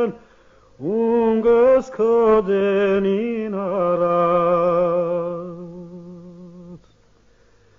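An elderly man singing an Armenian folk song solo, with no accompaniment heard. The phrase begins about a second in, moves through ornamented turns, then settles on a long held note with vibrato that fades and stops near the end.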